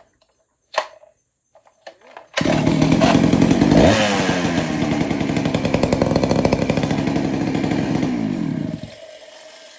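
Vintage Poulan two-stroke chainsaw firing up suddenly after a few light clicks, revving up once, then running fast and steady before dying down near the end.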